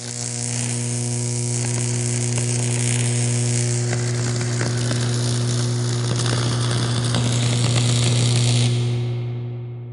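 Electric shock sound effect: a steady electrical buzz with dense crackling sparks that starts suddenly and fades out near the end.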